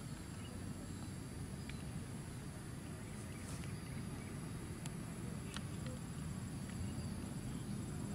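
Outdoor ambience: a steady high-pitched insect drone over a low wind rumble, with a few brief high chirps in the middle.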